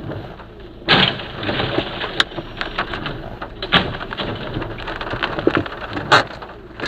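Steady rain-like noise, likely heavy rain, with many sharp clicks and knocks scattered through it and a louder burst about a second in.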